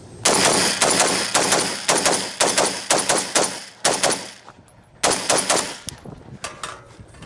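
AR-15 rifle firing a fast string of shots, followed by a second quick burst about a second later.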